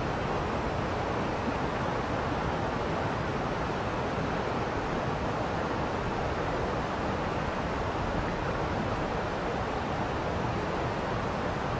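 Waterfall: a steady rushing roar of falling water, even and unbroken.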